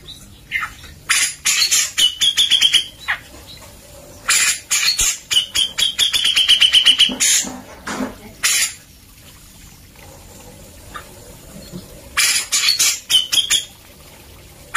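Grey-cheeked bulbul (cucak jenggot) calling vigorously in loud bursts of harsh, rapid chattering notes, some phrases running into a fast trill. There is a pause of a few seconds after the middle, then another burst.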